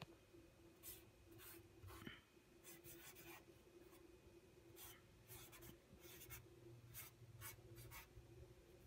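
Near silence: a faint low hum of room tone with scattered faint rustles and soft clicks.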